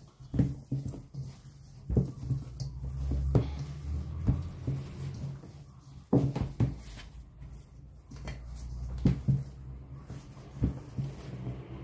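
Hands mixing and working picarón dough of sweet potato, squash and flour in a bowl: irregular dull thuds and knocks with a few sharper clicks.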